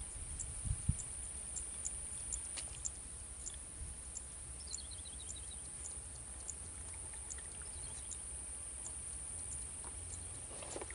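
Insects droning with a steady high-pitched buzz and a regular ticking of about three chirps a second, with a short bird call of quick falling notes about five seconds in.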